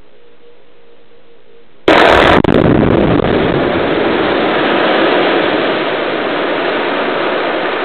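Quarry blast in limestone and dolomite rock: a sudden, very loud detonation about two seconds in, followed by several seconds of dense rumbling noise as the blasted rock face collapses, slowly fading.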